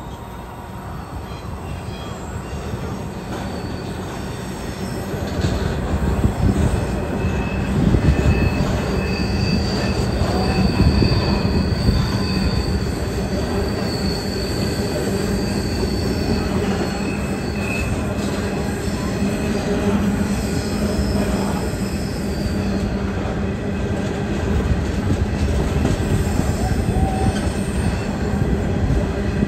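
Freight train of covered hopper wagons rolling through a curve: a steady rumble of wheels on rail, with high-pitched wheel flange squeal that comes and goes. The sound grows louder about five seconds in.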